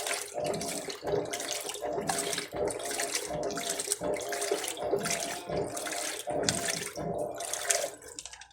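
Electrolux LTC15 top-loading washing machine agitating a tub filled to maximum water level: water swishing back and forth about twice a second over a steady motor hum.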